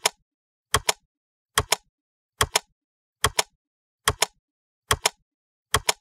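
Sharp double clicks repeating at a steady pace, one pair a little more often than once a second, with dead silence in between.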